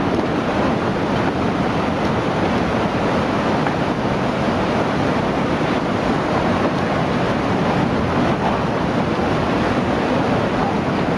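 Floodwater rushing by, a steady, even wash of noise that does not let up.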